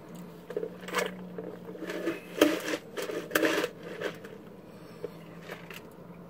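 Close handling noises: a few brief rustles and clicks from a drink cup and a foil-wrapped taco, and tea being sipped through a straw, over a steady low hum.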